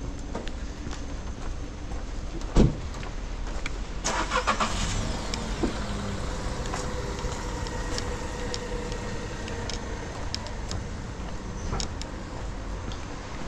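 Car running on a rain-wet city street, over a steady wash of street noise. A sharp knock about two and a half seconds in is the loudest sound, and a short rattling burst follows at about four seconds.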